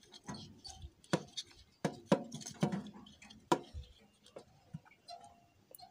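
Hands handling a clear plastic bottle and fishing line at the hook of a dial hanging scale: a string of irregular sharp clicks and taps. The loudest come a little over one, two and three and a half seconds in.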